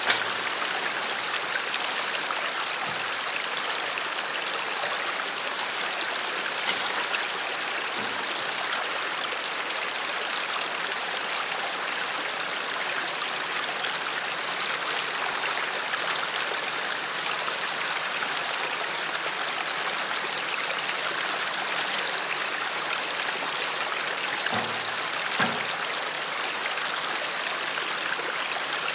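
Shallow creek water rushing steadily over rocks, with a couple of faint low knocks near the end.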